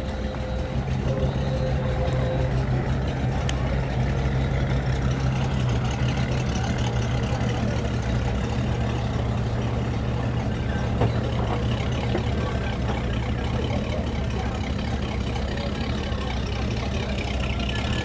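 Engine idling steadily with a low, even hum that grows a little louder about a second in.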